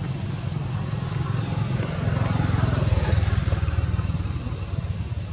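Steady low rumble of background noise that swells for a second or two around the middle.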